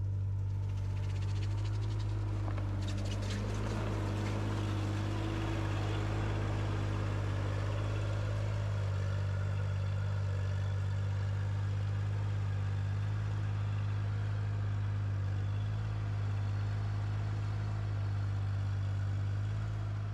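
ASV mini tracked skid steer's engine running steadily at a constant speed, a low, even drone.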